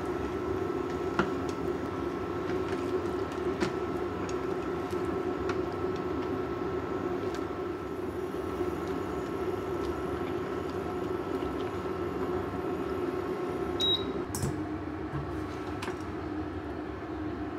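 Spaghetti boiling in a pan of water on an induction cooktop: a steady electrical hum with bubbling and a few light clicks of chopsticks against the pan. About 14 seconds in a short high beep sounds and the hum eases.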